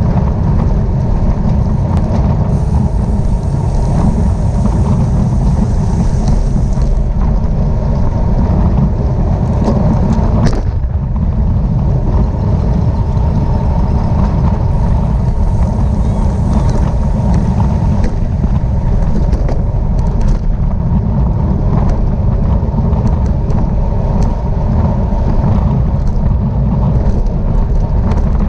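Steady, loud wind buffeting a camera microphone on a bicycle moving at race speed.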